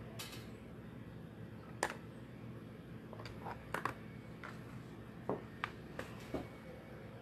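Handling noise from a phone camera being picked up and repositioned: a scattered series of short clicks and knocks over a steady low background hum.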